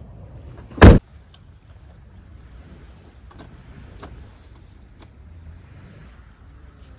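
Rear tailgate of a Mazda kei van swung down and slammed shut with one loud bang about a second in. A few faint light knocks follow over a low steady background.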